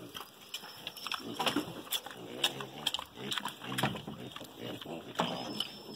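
Domestic pigs grunting several times, with scattered short clicks.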